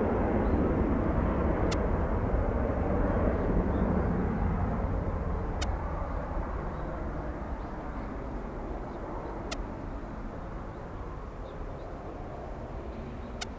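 Jet noise from a Boeing 737-800's CFM56-7B turbofan engines as the airliner climbs away after takeoff, a steady rumble that fades as it recedes.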